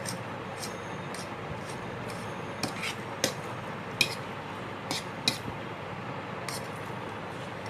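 Cutlery clinking against a dish during a meal: a handful of light, irregular clinks, the loudest about three and four seconds in, over a steady background hiss.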